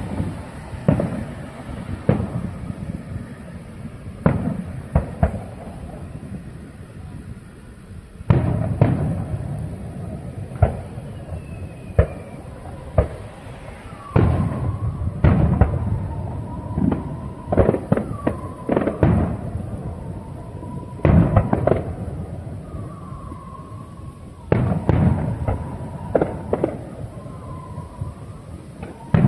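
Aerial fireworks going off: a rapid series of sharp bangs and cracks, each with a rumbling echo. The bangs come in several heavier volleys.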